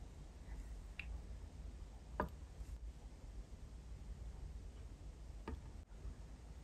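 A few faint, separate clicks and light glass taps as metal tweezers drop tiny sprinkle-covered chocolates into a miniature glass jar, over a low steady rumble.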